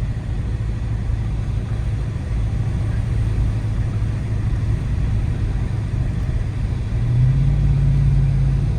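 Dodge Charger R/T's 5.7-litre Hemi V8 running steadily under way, heard from inside the cabin; about seven seconds in, the engine note rises and gets louder as it accelerates.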